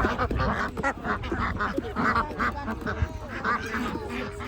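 Ducks quacking, many short calls in quick succession.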